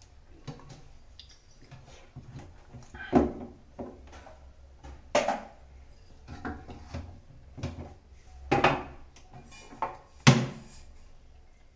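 Scattered knocks and clinks of pots and utensils being handled, about half a dozen a second or two apart, over a faint low hum.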